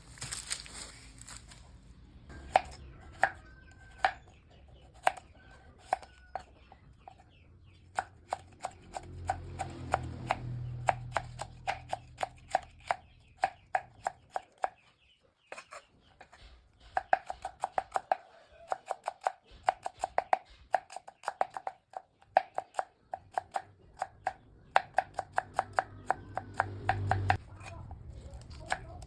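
Runs of quick, sharp chopping knocks, several a second, broken by short pauses.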